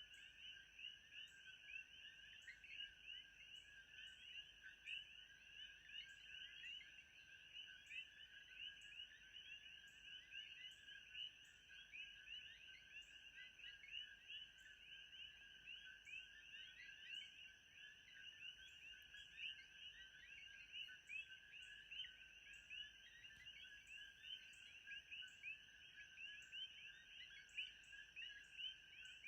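Faint night chorus of many frogs chirping densely and without pause, over a steady high insect trill that pulses regularly.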